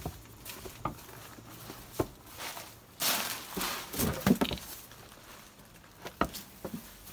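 Steps shuffling and crunching through dry leaf and straw bedding, with scattered knocks and a louder burst of rustling about three seconds in.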